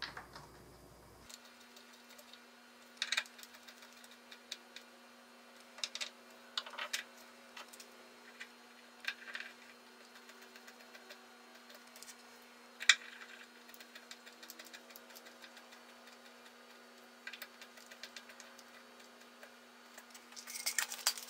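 Scattered light clicks and taps of hand work: a screwdriver, screws and wooden grip blanks being handled and set down on a plastic jig. A faint steady hum runs underneath; the sharpest knock comes about 13 seconds in, and a quick run of clicks near the end.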